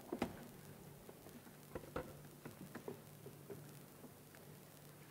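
Scattered faint clicks and taps of a laptop being handled and typed on at a lectern, a few sharper ones near the start and about two seconds in, over a faint steady low hum.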